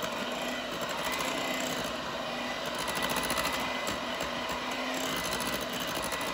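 Moulinex electric hand mixer running steadily, a continuous motor whir as its twin beaters whip pear cream into whipped cream.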